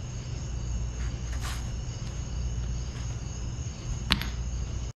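Steady low hum with a faint high-pitched whine, a brief rustle about one and a half seconds in, and one sharp clink a little after four seconds in as the freshly cast copper ingot is put down on the concrete floor.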